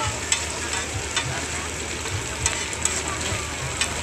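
Kebab wraps and chopped meat sizzling on a flat griddle, with a few sharp clicks of metal tongs tapping and turning food on the hot plate.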